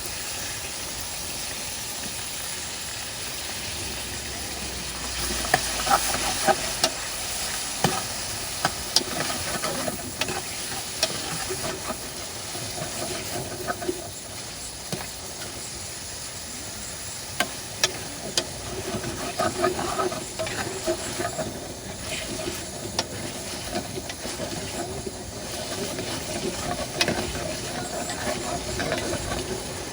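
Chicken sizzling in hot oil with onions and tomatoes in a pan, stirred with a spoon that scrapes and clicks against the pan again and again from about five seconds in.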